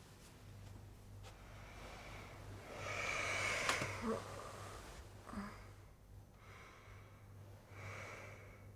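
A person breathing audibly: three noisy breaths, the loudest about three seconds in with a sharp click inside it, a shorter one past the middle and another near the end, over a steady low hum.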